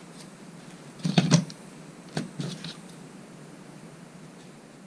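Paracord being threaded through a bracelet buckle, with a few sharp clicks of the cord and buckle being handled: two close together about a second in, then a few more lighter ones a second later.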